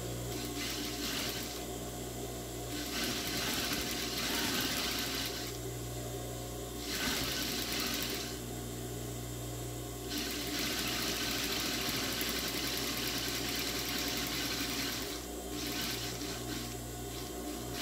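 Electric sewing machine stitching a zipper onto cotton fabric in several runs of one to five seconds, its motor humming steadily in the pauses between runs.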